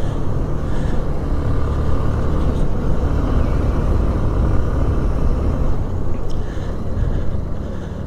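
Motorcycle climbing uphill, its engine held at high revs and labouring, under a steady low rumble of wind on the microphone. The rider puts the loss of power down to the thin mountain air starving the engine.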